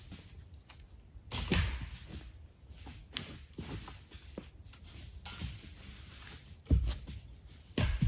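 Footsteps crunching and shuffling through dry leaf litter and brush, with irregular thuds and rustles. The loudest thud comes near the end.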